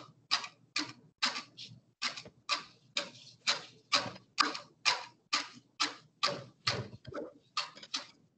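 Kitchen knife chopping on a cutting board, mincing jalapeño: a steady rhythm of sharp chops, about two a second.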